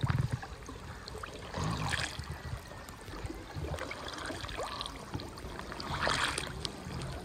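Water sloshing and lapping around people wading chest-deep through a shallow backwater, with scattered small splashes.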